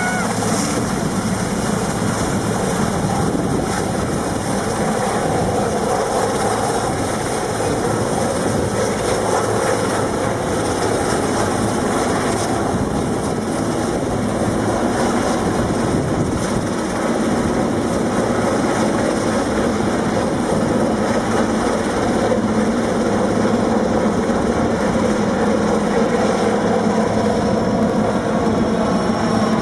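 Sikorsky S-61N rescue helicopter lifting off and climbing away: its twin turbines and rotor running steadily at high power, loud throughout.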